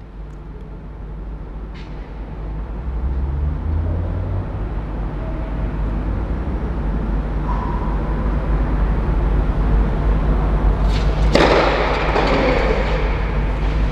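A low, steady rumble that grows slowly louder, joined about eleven seconds in by a louder hissing noise; a sharp tennis-ball strike about two seconds in and another about eleven seconds in.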